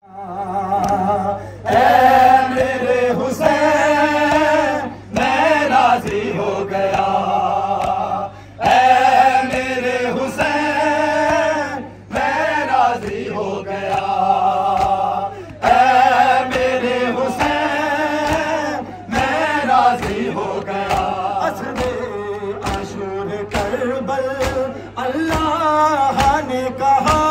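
Male voices chanting a noha, a Shia mourning lament, in sung phrases of a few seconds with short breaks, amplified through a microphone and horn loudspeaker. A steady low hum runs under the chanting.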